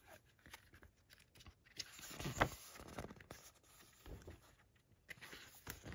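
Faint rustling and light taps of a Blu-ray box set's paper and cardboard packaging being handled, with one louder knock about two and a half seconds in.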